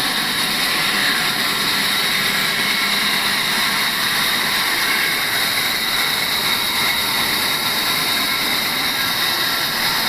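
Large sawmill band saw running steadily while a timber beam is fed through its blade, an even mechanical noise with a high steady whine.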